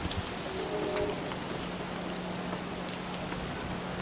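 Water dripping steadily, a dense patter of drops like light rain, with a low steady hum underneath.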